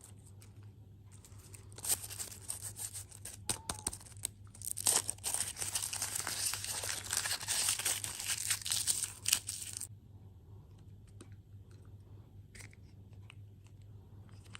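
Packaging being torn open and crinkled: dense crackling that starts about two seconds in and stops suddenly about eight seconds later, followed by faint scattered clicks and taps.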